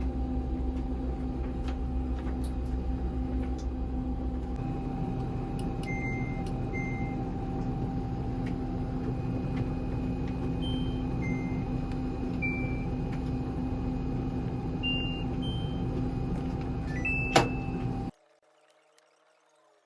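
Laundry machine running with a steady hum and low rumble, with a few short high beeps in the middle and a sharp click near the end, then the sound cuts off abruptly.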